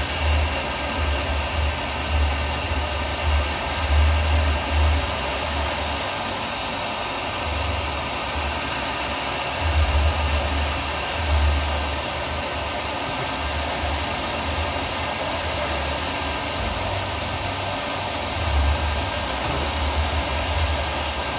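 Hot air rework station blowing a steady hiss of hot air onto a phone motherboard to desolder the charging port, with an uneven low rumble from the air stream buffeting the microphone.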